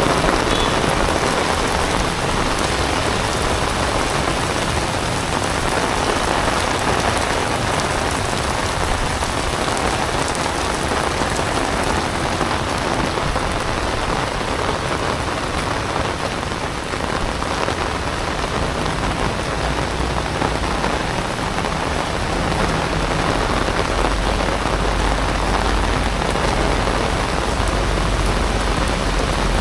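Heavy rain pouring onto paved sidewalk and road, a dense steady hiss of drops on wet pavement. A low rumble comes up in the last few seconds.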